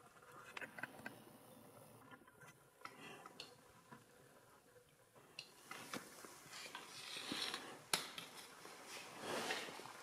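Footsteps scuffing and scraping over a rocky cave floor, with small clicks and clinks. The scraping grows louder in the second half, with one sharp click about eight seconds in.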